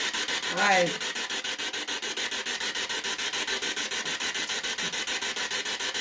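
Spirit box sweeping through radio stations: a rapid, choppy static that pulses about ten times a second, with a brief snatch of voice about half a second in.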